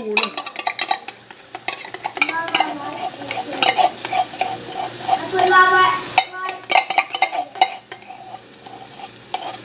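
A spoon stirring a thick meat-and-vegetable spaghetti sauce in a pan, clinking and scraping against the pan over and over, with the sauce sizzling under it.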